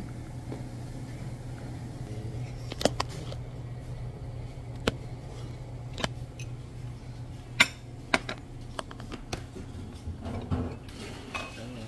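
Steady low hum of a restaurant dining room, with several sharp, separate clicks and taps scattered through it.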